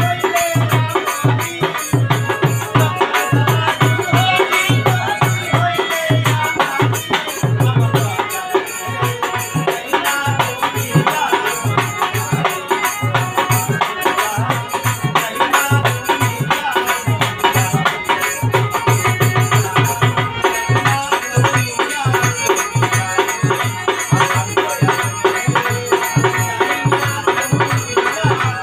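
Live Bengali Baul folk song: a man singing over harmonium, with a steady hand-drum beat and a rattling shaker keeping time.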